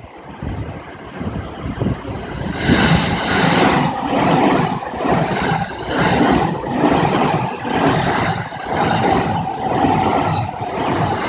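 A Saikyo Line electric train passes over a level crossing. From about two and a half seconds in, its wheels clatter over the rail joints in a steady rhythm of about three beats every two seconds, over the level-crossing warning bell.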